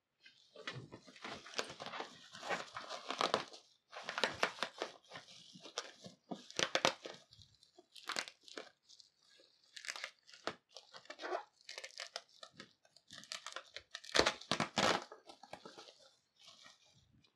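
Bubble wrap crinkling and rustling in irregular bursts as it is handled and pulled off a box, with tearing sounds among the crackles.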